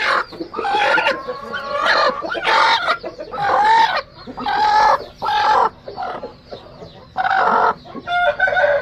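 Aseel chickens calling and clucking, about a dozen loud, short calls one after another.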